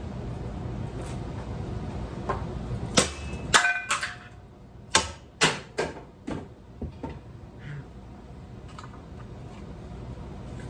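Ceiling fan parts being smashed: a quick series of about nine sharp knocks and clanks over some four seconds, the first few loudest, some with a brief metallic ring.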